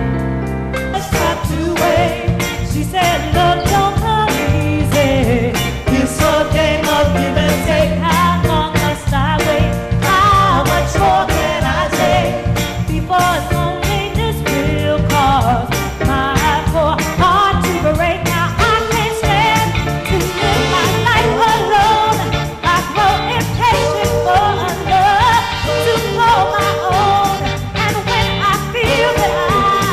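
A live band playing an up-tempo song with drums and percussion, with a singer's voice over it. About a second in, the band breaks from a held chord into a busier, driving section.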